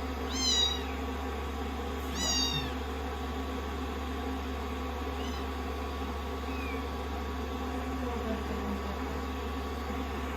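Kittens meowing: two clear high-pitched calls falling in pitch in the first few seconds, then two faint ones later. Under them a hair dryer runs with a steady hum and rush of air.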